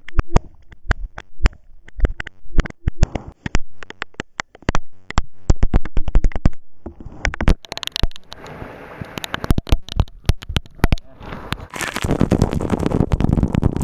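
Raindrops striking close by in irregular sharp taps, several a second, which give way near the end to the steady hiss of heavier rain.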